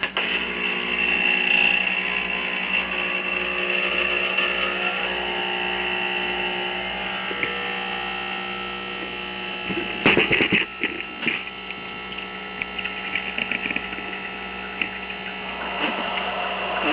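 Starbucks Barista espresso machine's pump humming steadily while pulling an espresso shot through a pod, with a brief clatter about ten seconds in.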